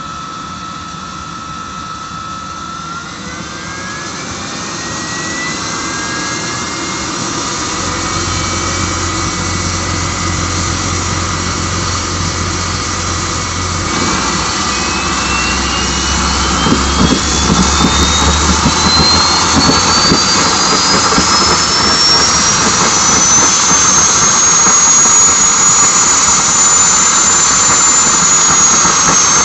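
Home-built turbocharger jet engine spooling up, its blower-assisted start turning the rotor ever faster: a whine that climbs steadily in pitch over rushing air, growing louder and levelling off high near the end.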